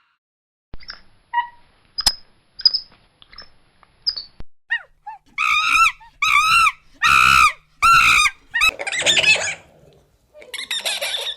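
An animal calling: a few faint short chirps, then a run of loud, high-pitched arching calls about one every half second, turning harsher and rougher near the end.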